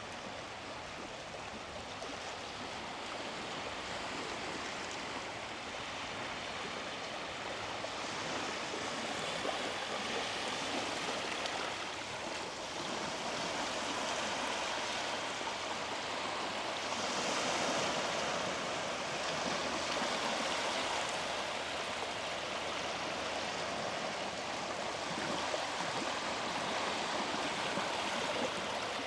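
Sea waves breaking and washing up on a beach: a steady rush of surf that swells and eases every several seconds.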